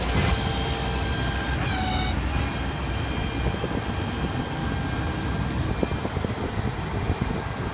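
Ford F550 tow truck's 6.7 L Power Stroke diesel running, with a low rumble and a steady high whine that dips in pitch briefly about two seconds in.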